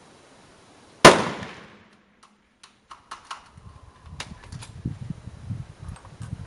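A single military bolt-action rifle shot about a second in, the loudest thing by far, its echo dying away within about a second. A run of light clicks follows over the next few seconds.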